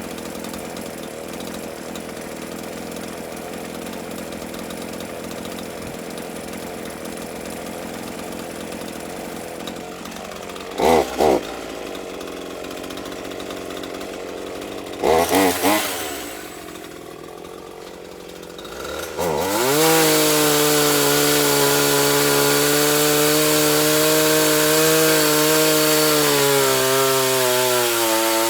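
Petrol chainsaw left running to warm up: it idles steadily, is blipped twice and then three times, then is run up to high speed and held there.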